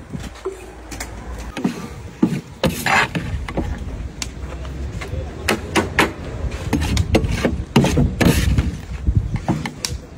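Sharp knocks and clatter of cooking tools: a cleaver chopping on a wooden board, then a metal skimmer knocking against a large pot of frying chips. A low steady rumble runs underneath.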